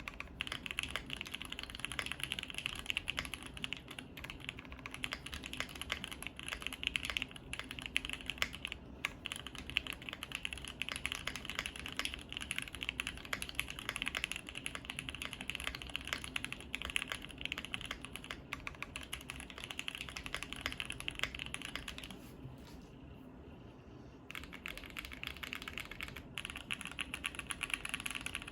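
Continuous typing on a Bakeneko60 custom mechanical keyboard with lubed SP-Star Meteor White linear switches on 63 g springs, an FR4 plate and GMK keycaps: a dense stream of key clacks, with a short pause about 22 seconds in before the typing resumes.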